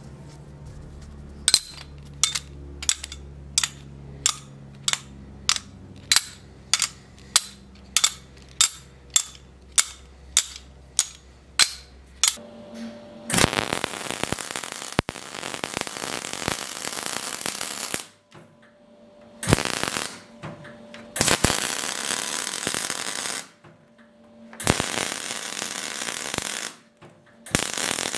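Electric arc welding crackling and hissing in five bursts of one to several seconds, with short pauses between them. Before the welding starts, there is a run of regular sharp clicks, about one and a half a second, over a low steady tone.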